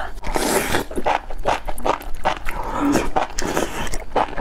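Slurping a mouthful of spicy enoki mushrooms, a long wet slurp in the first second, then steady wet chewing at about four chews a second.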